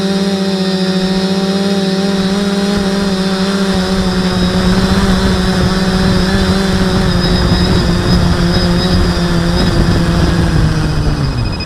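Small electric drone's motors and propellers running with a steady hum, and a rushing noise growing from about four seconds in. Near the end the motors spin down with a falling pitch as it settles onto the ground.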